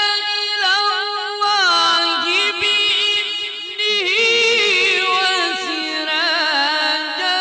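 A man's voice reciting the Quran in the melodic mujawwad style, drawing out long held notes pitched high in his range and ornamented with wavering turns, with short breaks for breath.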